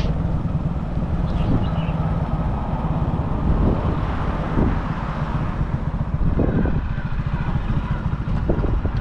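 A vehicle's engine running steadily as it drives along, a continuous low rumble with a noisy haze above it.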